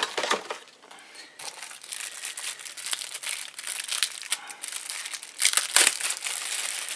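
Plastic packaging bag crinkling as a small accessory is pulled out and unwrapped by hand. It comes as irregular crackles, loudest near the end.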